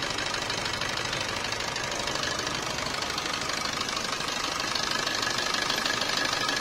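Maruti Suzuki Swift Dzire's 1.3-litre DDiS four-cylinder diesel engine idling, heard up close in the engine bay: a steady fast clatter with tappet noise, from a five-year-old engine on its old oil before an oil change. A steady whine joins about halfway through.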